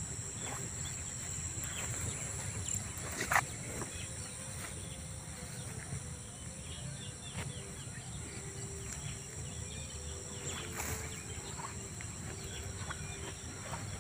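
Outdoor field ambience: a steady high chirring of insects with a few scattered bird chirps over a low rumble. A single sharp click about three seconds in is the loudest sound.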